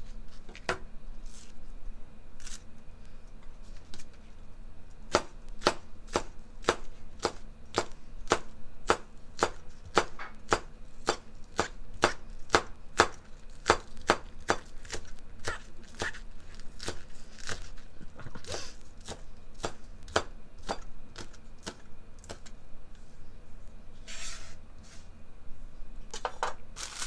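Chef's knife chopping green onion on a plastic cutting board: sharp knocks of the blade on the board. A few come at first, then a steady run of about two or three a second that thins out later. A brief scrape comes near the end.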